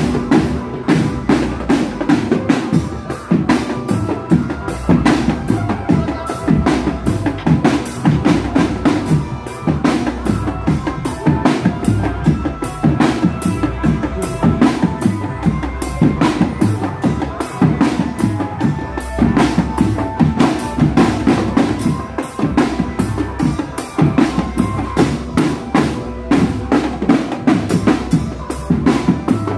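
Marching drum band playing: snare and bass drums beating a quick, steady marching rhythm without a break.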